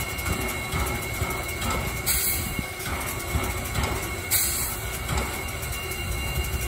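Norfolk and Western J-class 4-8-4 steam locomotive standing with steam up, hissing steadily, with two short louder bursts of hiss partway through.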